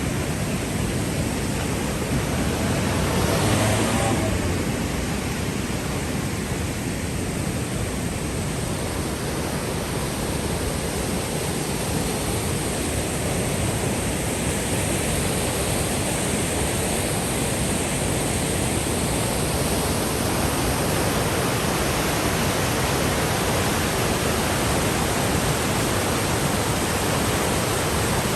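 Loud, steady rush of heavy water from the rain-swollen Peričnik waterfall, with a brief louder swell about three seconds in.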